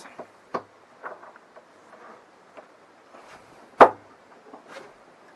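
Small clicks from a stainless flush lift-ring latch on a cockpit locker lid. About four seconds in comes one sharp knock as the lid is worked open, followed by a couple of fainter clicks.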